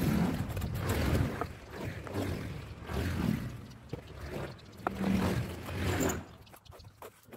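Gusty wind buffeting the microphone in uneven swells, with a few sharp knocks from stones being handled in the masonry work.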